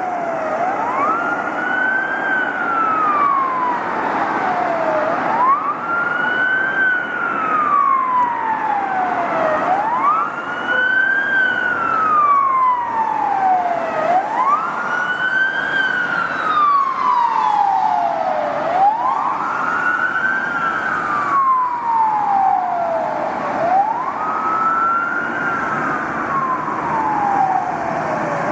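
Police siren on a slow wail: each cycle climbs quickly in pitch, then falls slowly over about four seconds, repeating steadily about six times over a constant background hiss.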